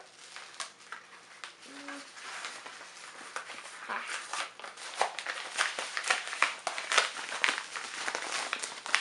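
A package being unwrapped by hand: irregular crinkling, crackling and rustling of packaging, sparse at first and busier and louder from about four seconds in.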